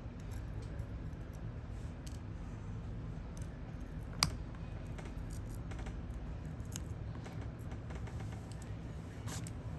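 Light clicks and scrapes of small hand tools working at an Apple Watch's cracked back glass to pry it off, with one sharper click about four seconds in, over a steady low hum.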